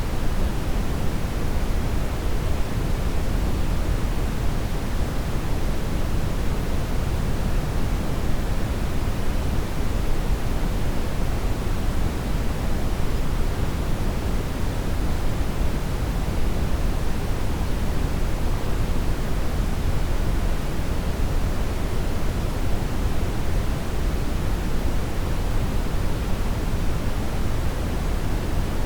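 Steady brown noise: an even, deep rushing hiss with most of its weight in the low end and little at the top, unchanging throughout.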